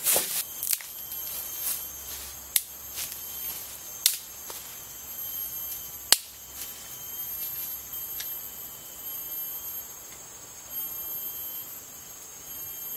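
Forest insects droning in steady high tones, with a few sharp snaps or cracks spaced a second or two apart, the loudest about 2.5, 4 and 6 seconds in.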